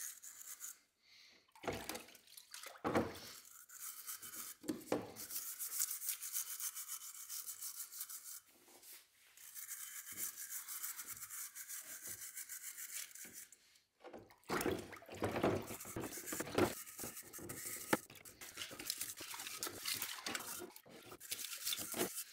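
A metal scraping tool scrubbing stripped paint off a Brembo six-pot brake caliper under water, in quick back-and-forth strokes with a few short pauses.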